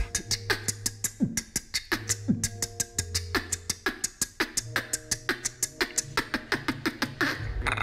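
Beatboxing done without the lips, the mouth held open by a cheek retractor: a fast, steady beat of sharp clicky snare and hat sounds, about six or seven a second, over a held bass hum, with a few short pitch sweeps. Near the end it changes to a rougher, buzzing sound.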